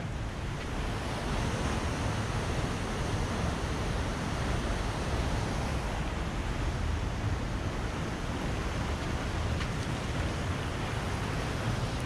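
A waterfall's steady rush of falling water.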